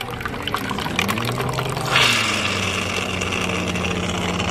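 Coffee machine dispensing espresso-blend coffee into a foam cup: its pump hums steadily with rattling clicks, and about two seconds in a louder steady hiss joins as the coffee pours.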